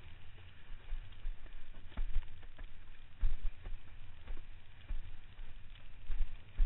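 Wind buffeting the microphone of a board-mounted camera in irregular low gusts, with water splashing and slapping against a windsurf board sailing through chop.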